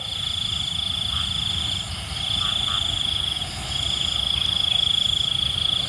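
Night chorus: a high, steady trill from calling animals, running in three long stretches with short breaks, over a low rumble.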